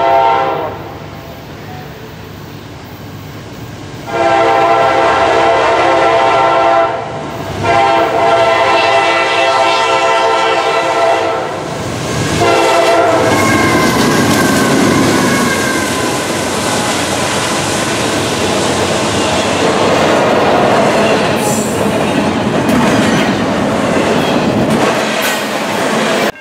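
Norfolk Southern diesel freight locomotive sounding its multi-chime horn: softer at first, then two long loud blasts from about four to twelve seconds in. After that the train passes close by, and the double-stack intermodal cars make a steady loud rumble and clatter on the rails.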